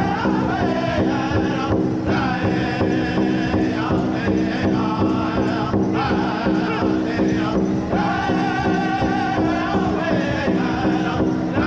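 Powwow drum group: several men striking one large shared hide drum with padded sticks in a steady, even beat while singing together in chant, the voices pausing briefly a few times between phrases.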